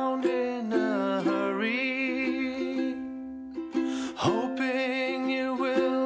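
Background music with plucked strings and a melody over a held low note.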